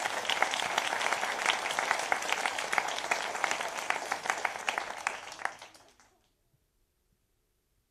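Audience applauding, many separate claps in a steady patter that dies away about six seconds in.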